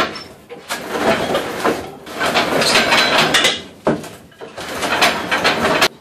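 Homemade roll-up door of hinged wooden planks rattling and rumbling along its tracks as it is pulled by its rope, in three runs of about a second and a half each, with a sharp knock near the middle.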